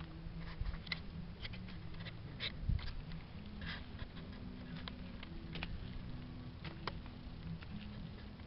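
Footsteps on a dry dirt path: irregular light scuffs and clicks, over a low steady hum.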